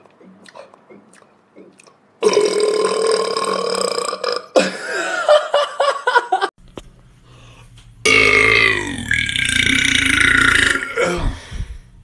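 Men burping: one long, loud burp begins about two seconds in and wavers in pitch, and a second long burp begins about eight seconds in with its pitch falling.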